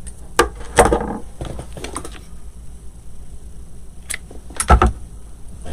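A few sharp clicks of hand cutters snipping and of tools being handled, with a heavier knock near the end, the loudest sound.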